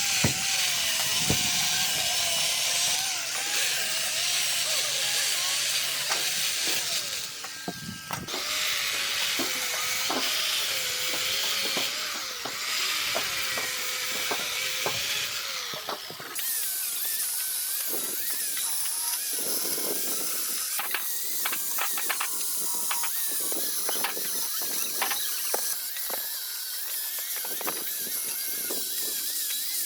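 Hydraulic log splitter at work on oak firewood: a steady mechanical hiss with a wavering hum. About sixteen seconds in the sound changes abruptly and scattered knocks and clicks follow.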